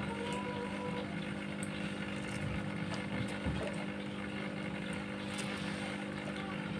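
A steady low mechanical hum, with a few faint small clicks scattered through it.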